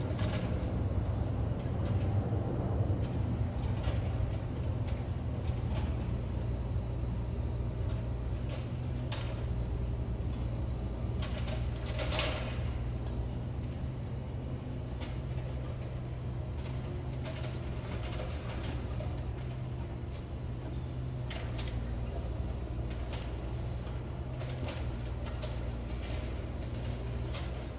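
Low, steady jet-engine rumble of an Airbus A380 overhead, slowly fading as it moves away. Scattered light clicks sound over it.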